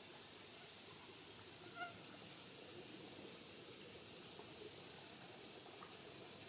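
Steady high-pitched drone of rainforest insects, such as cicadas, with one short bird call about two seconds in.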